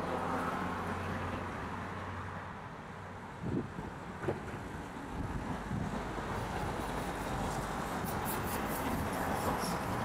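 Road traffic noise: a vehicle's low engine hum that fades out about three seconds in, two short knocks a little later, then a rumbling traffic wash that builds towards the end.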